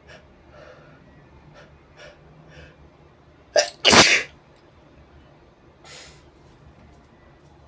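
A person's sneeze, brought on by a brush tickling the nose: a few short catching breaths, a quick catch, then one loud sneeze about four seconds in, followed by a breath a couple of seconds later.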